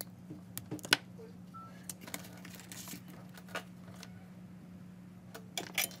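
Diagonal side cutters snipping and stripping insulated wire in sharp clicks, the loudest about a second in and a quick cluster near the end, over a steady low hum.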